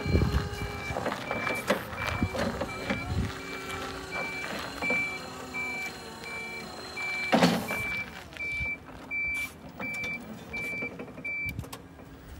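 Toyota three-wheel electric forklift's warning beeper sounding about twice a second over the steady whine of its motors while it drives. A brief loud noise comes about seven and a half seconds in, and the beeping stops just before the end.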